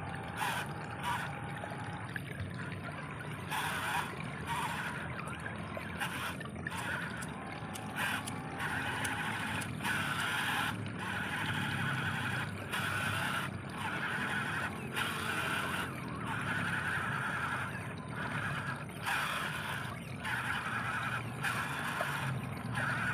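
Water trickling and gurgling steadily along a shallow, narrow ditch, with irregular surges.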